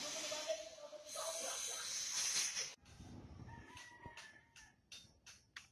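Angle grinder working a stainless steel railing, a loud steady hiss with a faint tone under it, that cuts off abruptly under three seconds in. After it come faint, sharp clicks, about two or three a second.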